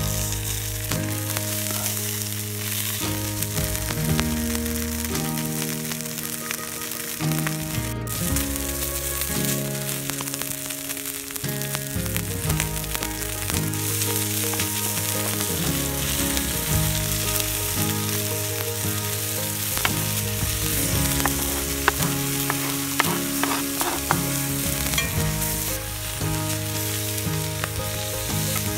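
Salmon and vegetables sizzling in hot oil in a cast iron skillet, with sharp spitting pops here and there, more of them in the second half. Background music with a stepping bass line plays under the sizzle.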